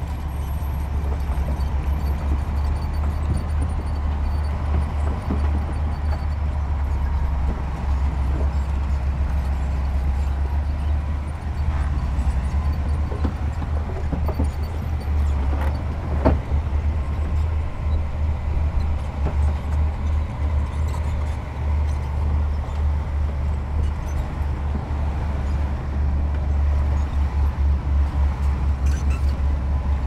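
Heavy diesel earthmoving equipment (dump trucks and bulldozer) running steadily with a deep rumble, with one sharp knock about halfway through.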